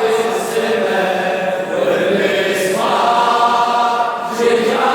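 Unaccompanied male voices chanting a Shia mourning latmiyya in Iraqi Arabic, drawing out long held notes. A new sung phrase begins strongly about three seconds in.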